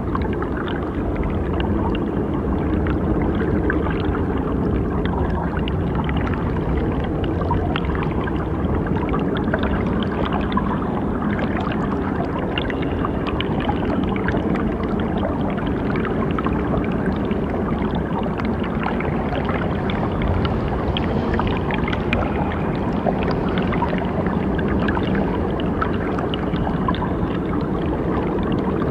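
Steady ambient meditation soundscape: a low hum under a dense, water-like noisy texture with fine crackles, unchanging throughout.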